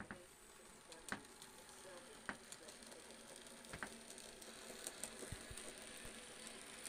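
Model Baldwin steam locomotive and its short goods train running on model railway track: a faint steady hiss with a few sharp, irregularly spaced clicks.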